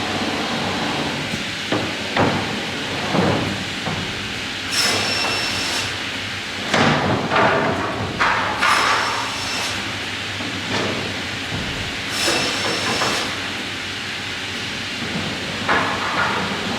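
Salvamac Salvapush 2000 optimising crosscut saw running with a steady machine noise; its blade cuts through timber three times, about four seconds apart, each cut with a high whine, between knocks and clunks of wood being moved.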